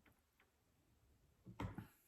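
Near silence, then a few short plastic clicks and knocks about one and a half seconds in, from the Alfa Romeo key fob being handled as its mechanical key is popped out.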